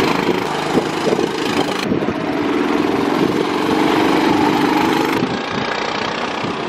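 Small single-cylinder go-kart engines running, a steady buzzing drone. The sound changes abruptly about two seconds in and again about five seconds in, as if cutting between shots.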